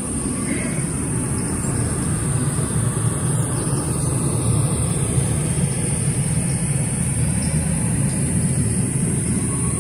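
A steady low rumble like an engine running, with a constant high hiss above it.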